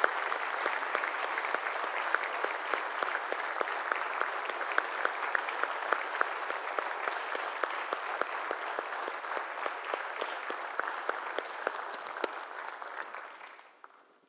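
A congregation applauding: many hands clapping steadily, dying away near the end.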